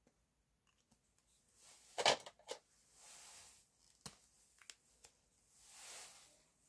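Handling noise of paper and pens on a desk: a quick cluster of clicks and knocks about two seconds in, a few single sharp clicks after, and soft rustling as hands slide over the paper sheet.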